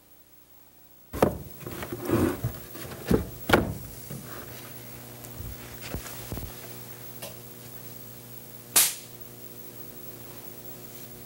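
Wooden parts of an architectural scale model being handled, giving a run of knocks and clatters over several seconds. A single sharp snap follows near nine seconds, over a steady low hum.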